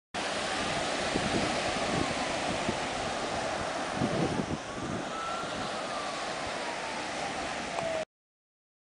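Ocean surf breaking and washing up on a sandy beach, with wind buffeting the microphone. The sound cuts off suddenly near the end.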